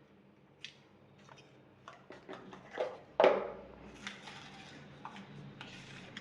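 Small plastic parts and packaging of a wireless microphone kit being handled: light clicks and rustling, with one louder knock about three seconds in as something is set down.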